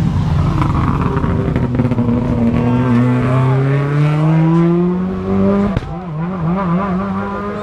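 Rally car engine pulling hard, its note rising steadily for several seconds. A sharp crack comes about three-quarters of the way through, and after it the pitch wavers up and down.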